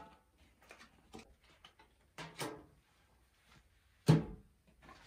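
Playing cards handled and slapped down onto a metal serving tray: soft clicks of the cards, two slaps a little after two seconds in, and a louder slap about four seconds in.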